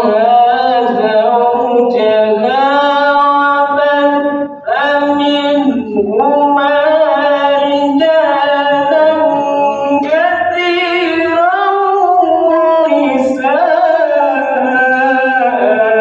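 Male qari reciting the Quran in melodic tilawah style, one voice holding long ornamented phrases that slide between pitches, with brief breath breaks about four and a half and six seconds in. The recitation is sung while the reciter has a cough and flu.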